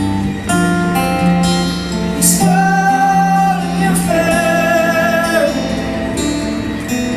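Live acoustic guitar music: strummed chords under long held, slightly wavering melody notes, with wordless singing.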